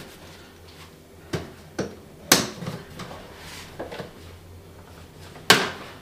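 A handful of sharp plastic clicks and knocks, five or so spread over a few seconds, as hands pick at the stiff plastic socket covers on a portable power station's casing.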